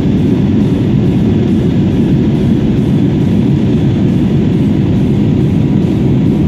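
Steady cabin noise of a jet airliner in flight, engine and airflow noise heard from a window seat, even and unbroken with most of its weight low down.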